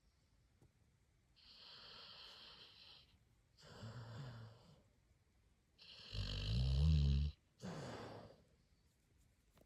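Sleeping Labrador puppy snoring: four breaths at roughly two-second intervals, the third the loudest with a low rattling snore.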